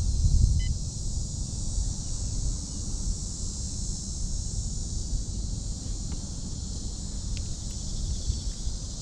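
Steady high-pitched insect chorus with a low rumble of wind on the microphone. A short electronic beep comes about half a second in.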